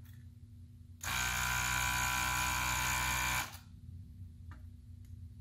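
Desoldering gun's vacuum pump running steadily for about two and a half seconds, switched on and off abruptly by the trigger, drawing molten solder off a gauge stepper motor's pins on the circuit board. A faint click follows near the end.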